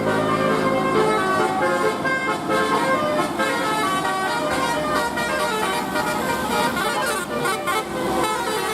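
Bus 'telolet' horn: a set of tuned horns playing a quick melody of short notes that step up and down in pitch.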